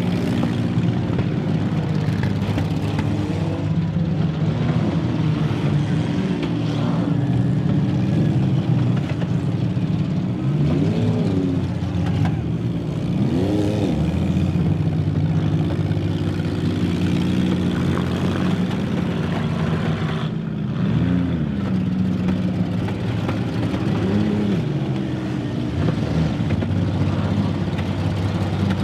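Many demolition derby cars' engines running together. Engines rev up and back down again and again as drivers throttle through the pile.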